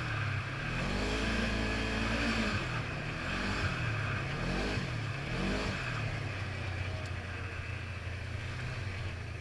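Polaris RZR 900 side-by-side's twin-cylinder engine revving up and falling back several times as the throttle is worked, then running more evenly for the last few seconds, heard from the cockpit with a steady rush of wind and trail noise.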